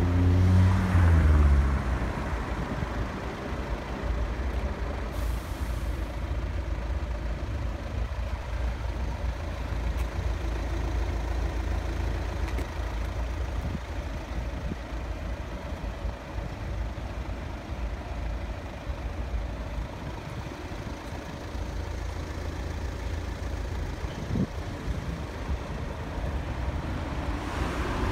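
Outdoor traffic noise with a steady low rumble. In the first two seconds a vehicle's engine note falls in pitch.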